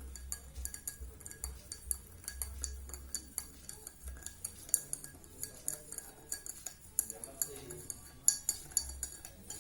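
A spoon stirring honey and warm water in a drinking glass, clinking against the sides in quick, irregular taps, several a second.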